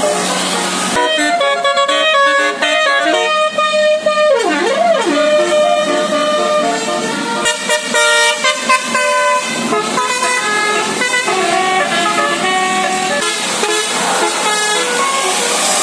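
Bus 'telolet' musical air horn with eighteen trumpets playing a tune, loud notes changing in steps, with a swooping dip in pitch about five seconds in. A rushing noise sounds in the first second and again near the end.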